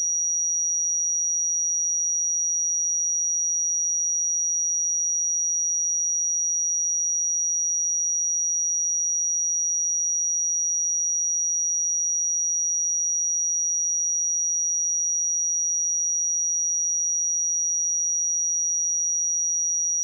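A steady 5767 Hz sine-wave test tone: one pure, high-pitched whistle held at a constant level, with no other sound.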